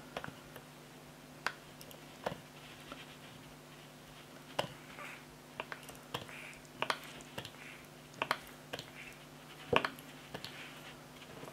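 Quiet, irregular clicks and soft wet squishes as the pump of a liquid hand-soap bottle is pressed repeatedly and soap runs over a plastic fidget spinner held in the hand. A faint steady hum lies underneath.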